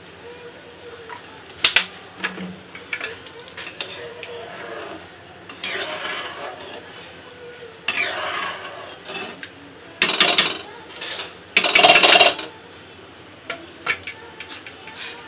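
Ladle stirring rice and water in a pan, scraping and clinking against the pan in a series of bursts, loudest about ten and twelve seconds in.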